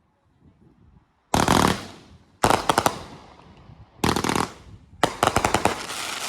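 A consumer firework cake going off in four volleys of rapid sharp bangs and crackles, each about a second apart, the last one longest.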